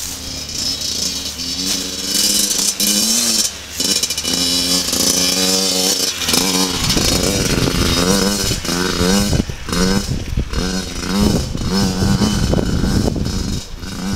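A Yamaha dirt bike riding past, its engine revving up and dropping again and again as the rider accelerates and shifts. The engine grows louder and deeper from about halfway through, as the bike passes close.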